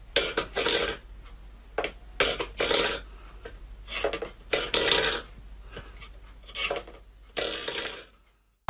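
A stainless steel pet bowl scraped along a wooden floor by a cat's paw in short pushes, mostly in twos and threes with pauses between.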